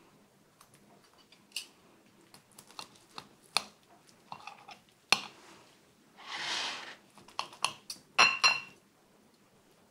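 Metal knife and fork clinking and tapping on a ceramic bowl as baked lasagna is cut. There is a scrape of just under a second about six seconds in, and the loudest clinks come in a quick cluster near the end.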